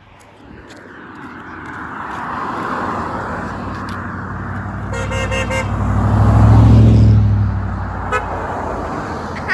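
A vehicle drives past, its engine and tyre noise building to a loud peak a little past halfway and then fading. Just before the peak its horn gives a quick burst of short toots.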